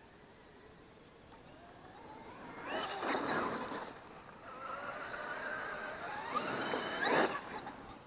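Traxxas X-Maxx electric RC monster truck accelerating twice, its motor and drivetrain whine rising in pitch each time and ending in a loud burst of noise.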